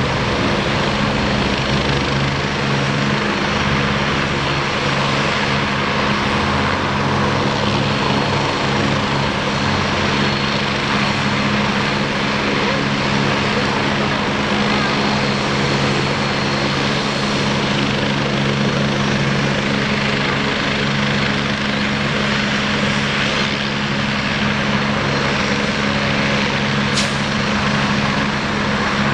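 Rescue helicopter running steadily, a loud continuous drone of turbine and rotors with a low even hum that holds the same pitch throughout.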